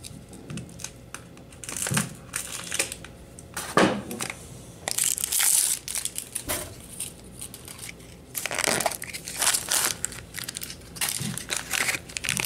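Crinkly plastic toy packaging being torn open and crumpled by hand, in irregular crackling bursts that are loudest about halfway through, with a few sharp plastic clicks earlier on.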